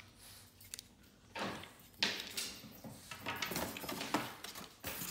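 Unpacking noises: a power adapter's cord and the packaging in a cardboard box being handled, with irregular rustles and knocks, the loudest knock about two seconds in.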